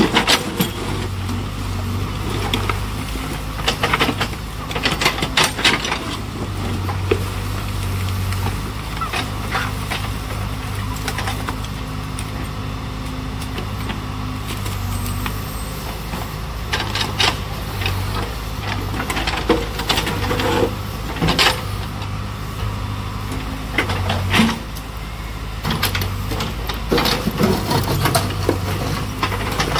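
Backhoe loader's diesel engine running, its drone rising and easing with the work, with repeated knocks and clatters from the bucket and rubbish as it loads a dump truck.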